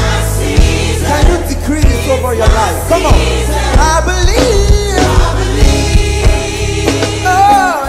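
Live gospel praise-and-worship music: a choir singing over a drum kit and electric bass guitar, with drum hits marking a steady beat.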